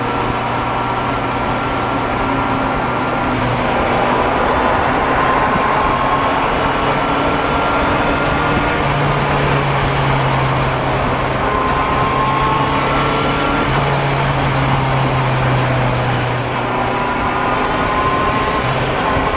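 Honda CB650F inline-four engine running at cruising speed under steady wind and road noise. The engine tone steps up and back down a few times as the throttle is opened and eased.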